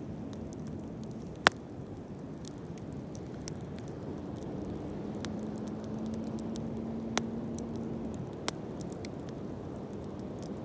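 Wood bonfire burning with a steady low rush and scattered small crackles, with a sharp pop about a second and a half in and two more later on.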